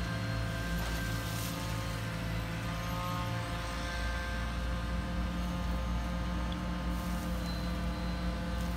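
Radio-controlled hydraulic excavator's electric hydraulic pump humming steadily as the boom and bucket move, with its pitch dropping to a new steady note about three and a half seconds in as the load changes.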